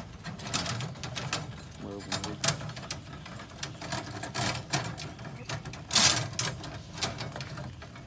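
Steel tie wire being twisted by hand around the bars of a rebar cage: a run of small metallic clicks and rasps, with a louder burst of noise about six seconds in.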